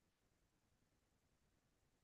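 Near silence: only faint low hiss.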